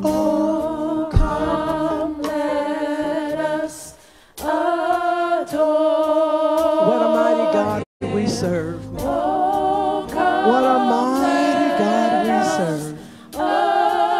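A woman singing gospel solo into a microphone with no accompaniment, in long phrases of held, wavering notes. She breaks briefly between phrases about four seconds in and again about eight seconds in.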